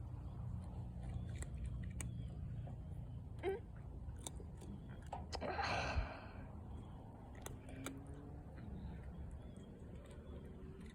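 Close rustling and handling noise with scattered small clicks, and a short hiss-like burst about halfway through.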